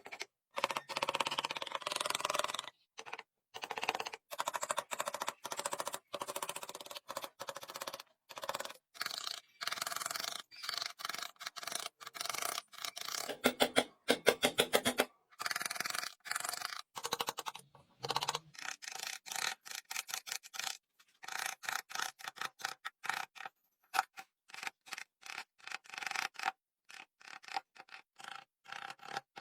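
Hand tools scraping and rubbing on wood in quick repeated strokes, in choppy stretches broken by abrupt gaps.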